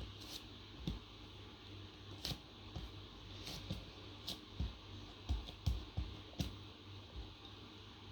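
Slime being squeezed and stretched by hand, giving irregular sticky clicks and pops that come thickest a little past the middle, over a steady low hum.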